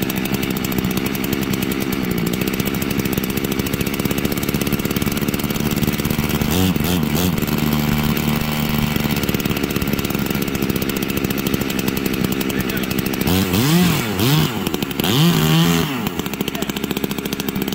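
Two-stroke chainsaw (a 381 build) idling steadily while its carburetor mixture screw is being turned for tuning. It is blipped briefly about a third of the way in, then revved up and back down twice near the end to check throttle response.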